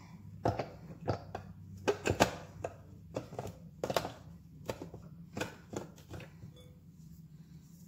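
Parts of a small food chopper being fitted together by hand: irregular clicks and knocks, busiest in the first few seconds and thinning out near the end.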